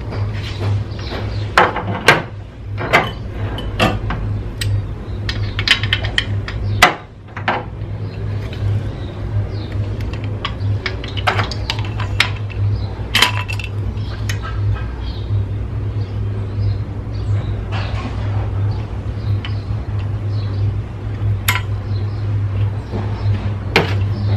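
Metal hand tools clinking and tapping at irregular intervals on the cylinder head bolts of a Fiat Ducato 1.9 diesel as they are angle-tightened a further 90 degrees, over a steady low hum.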